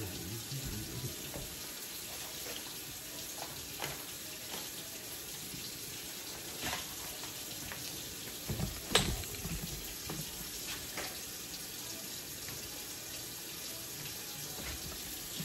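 Kitchen faucet running steadily into a stainless steel sink during dishwashing, with a few light knocks, the sharpest about nine seconds in.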